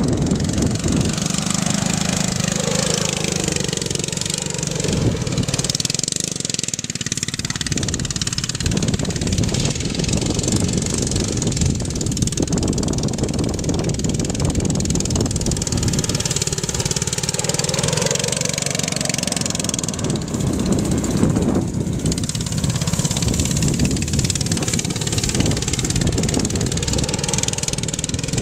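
Quarter-scale RC Chevrolet Silverado truck's engine running steadily, its pitch rising and falling a few times as the throttle is worked.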